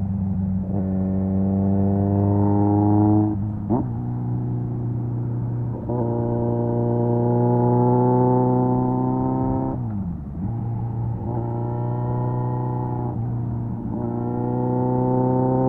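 Kawasaki Z900's 948cc inline-four, through an SC Project aftermarket exhaust, pulling hard: the revs climb and drop sharply at each gear change, several times. The revs fall away in a deeper dip about ten seconds in, then climb again.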